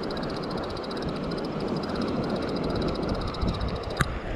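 Wind buffeting the microphone over the rush of surf, with a fast, even, high-pitched ticking that stops with a single sharp click about four seconds in.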